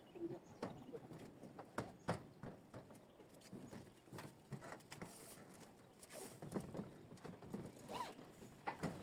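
Faint, irregular knocks and taps, about one or two a second, with short pitched squeaks between them.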